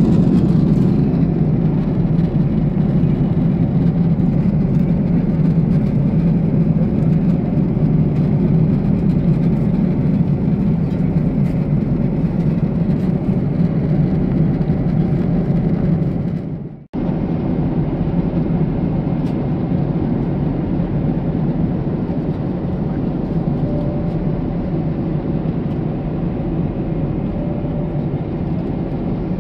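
Steady cabin drone of a Boeing 747-8 airliner in cruise: engine and airflow noise heard from a seat inside the cabin, a low, even rumble. It drops out for a moment about two-thirds of the way through, then carries on unchanged.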